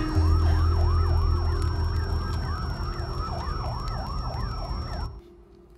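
Emergency vehicle siren in a fast yelp, its pitch sweeping down and up about three times a second over a low steady drone. It cuts off suddenly about five seconds in.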